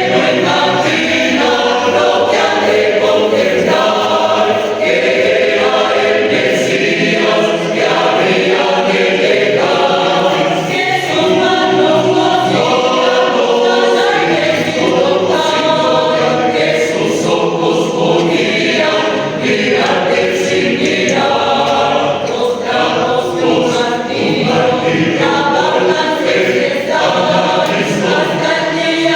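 A choir singing, many voices together on held, changing notes.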